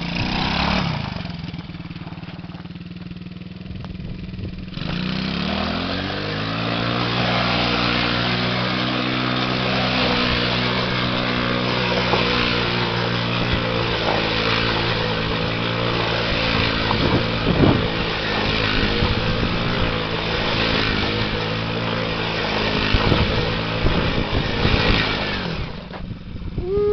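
Small engine of a child's youth ATV idling, then revving up about five seconds in and running at a steady, higher pitch while the quad circles in donuts, its tyres crunching and spraying gravel. The engine note falls back near the end.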